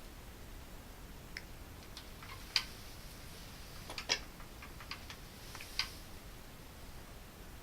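A handful of short sharp clicks and snips from a small hand tool cutting and stripping thin electrical wire, the loudest a little after two and a half seconds and around four seconds.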